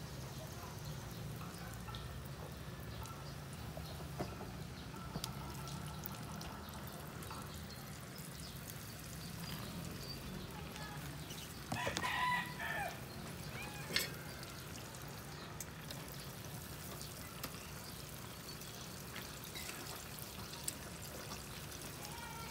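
Chicken pieces deep-frying in a pan of hot oil: a steady bubbling sizzle with faint crackles. About halfway through, a rooster crows once.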